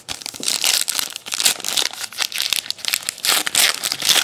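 Crinkling and crackling of plastic card packaging as baseball cards are handled and slid in and out of a clear sleeve, with many small rustles and clicks.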